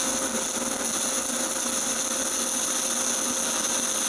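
Stick (MMA) welding arc burning steadily as a 2.5 mm 7018 basic-coated electrode lays the second pass on a vertical-up (PF) joint: an even, unbroken hiss.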